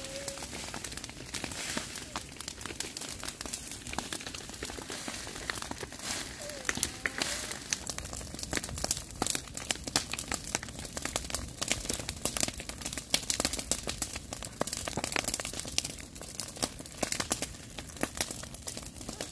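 Dry grass burning, crackling with many sharp, irregular snaps and pops.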